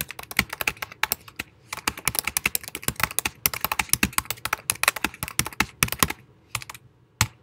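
Typing on a computer keyboard: a fast, uneven run of key clicks that stops about six seconds in, followed by a couple of single clicks near the end.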